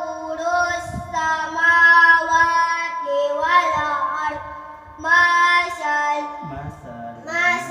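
A child's voice reciting the Quran in a drawn-out melodic chant: long held notes in several phrases, with short breath breaks between them.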